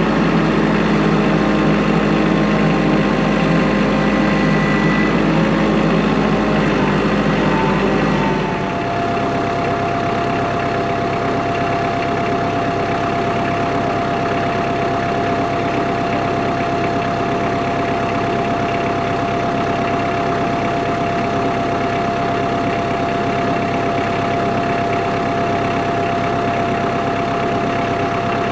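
Kubota L3940 tractor's three-cylinder diesel engine running steadily. About eight seconds in the sound changes abruptly: the deep rumble drops away and a steady high whine holds from then on.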